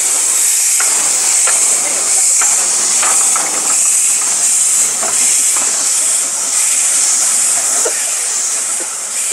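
Narrow-gauge steam locomotive No. 7 'Spitfire' moving off, with a steady loud hiss of steam venting at its cylinders and a few faint clicks. The hiss eases a little near the end as it draws away.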